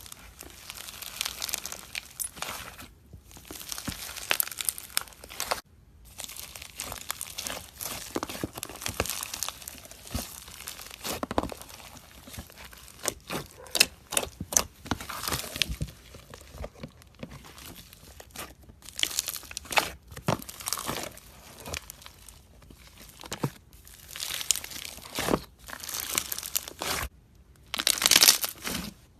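Slime being squeezed and played with by hand, making dense crackling and clicking with sticky tearing sounds. The sound cuts off abruptly a few times between handlings.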